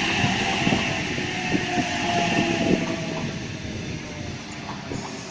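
Sydney Trains Waratah electric train running past, with scattered wheel clicks over the rail joints and a faint motor whine slowly sinking in pitch. It fades through the second half as the train moves away.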